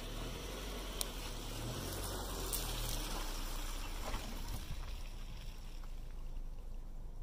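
Silver Subaru hatchback driving slowly past and away over a grassy track, its engine and tyres giving a steady rumble and rustle that eases as it pulls away after about five seconds.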